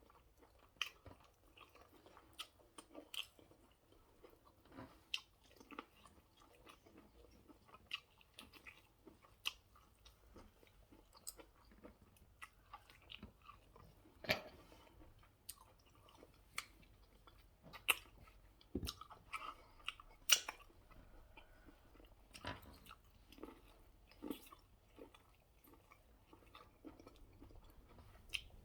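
A person chewing and biting food close to the microphone: faint irregular clicks with a few louder bites midway.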